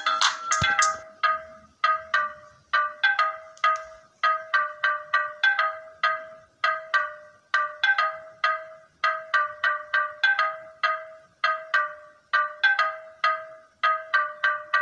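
A looping marimba-like electronic melody of short, bright notes in a phrase that repeats every second or so, in the style of a phone ringtone.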